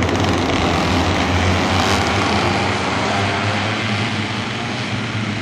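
A pack of small two-stroke racing kart engines running at high revs together, a steady, dense engine drone that fades slightly towards the end as the karts move away.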